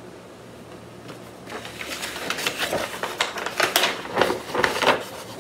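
Sheets of printer paper being handled and shuffled, rustling and crackling in quick irregular bursts from about a second and a half in.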